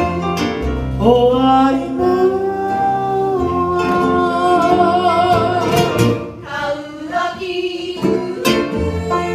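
Live Hawaiian song: a voice sings long held, gliding notes over plucked guitar-style string accompaniment, the singing easing off about six seconds in while the strings carry on.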